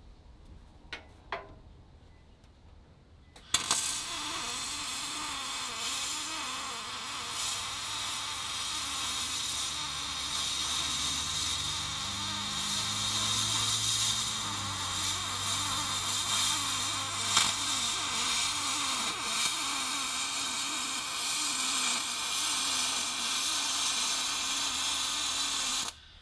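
MIG welding arc on an aluminum flatbed frame: a steady crackling hiss that strikes up about three and a half seconds in, runs unbroken for some twenty seconds, and cuts off sharply just before the end.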